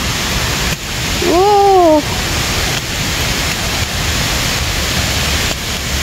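Steady rush of falling water from a waterfall. About a second in, a person gives one short vocal 'ooh' that rises and then falls in pitch.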